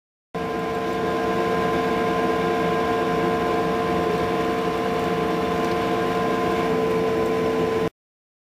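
LEI Products BB500 Bio-Burner wood-chip furnace running: a steady machine hum with several held tones. It cuts in and out abruptly.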